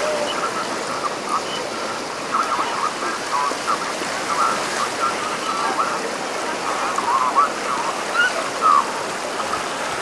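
Steady rush of water running down a water-slide flume, with scattered short distant voices over it.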